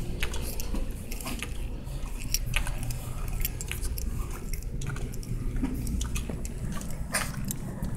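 Handling rustle from a phone carried while walking, over a steady low rumble, with scattered light clicks and clinks.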